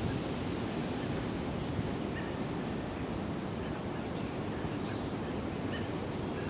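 Steady outdoor background noise, mostly a low rumble, with a few faint short bird chirps.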